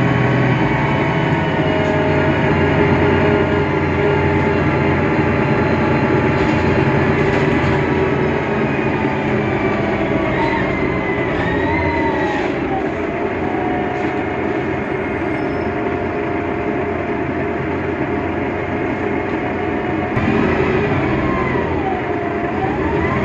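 Mercedes-Benz Citaro O530 Ü city bus under way, its OM 906 hLA diesel engine and Voith DIWA automatic gearbox giving a steady drone. Whining tones rise and fall over it about ten seconds in and again near the end.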